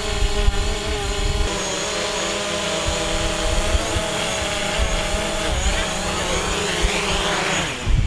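Quadcopter drone's propellers whining steadily, the pitch wavering slightly in the middle and dropping away near the end, over a low rumble of wind on the microphone.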